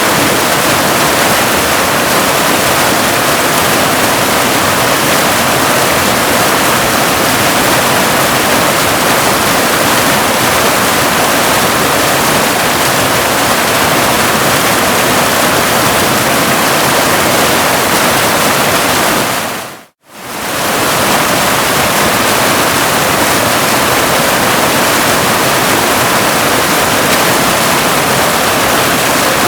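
Steady, even rushing of a waterfall. About two-thirds of the way through it fades out to silence for a moment and fades straight back in.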